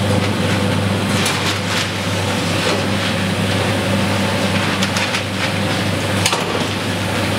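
Corn flour and grits packing line running: automatic bagging machines and a belt conveyor giving a steady electric machine hum, with a few brief clicks, the sharpest about six seconds in.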